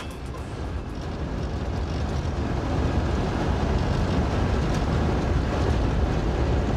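Vehicle driving along a dirt road: a steady rumble of engine and tyres that rises in level over the first couple of seconds.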